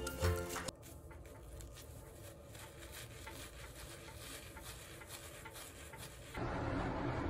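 Background music stops about a second in. Then comes a faint, irregular rubbing and patting: a terry towel squeezing water out of the damp bristles of a Kumano-fude body brush. Near the end a louder steady noise comes in.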